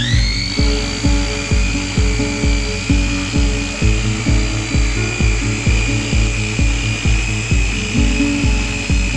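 Handheld electric rotary polisher with a buffing pad running at high speed, working polishing compound over a plastic tail-light lens; its high whine climbs sharply at the start, then holds steady. Background music with a steady beat of about two thumps a second plays under it.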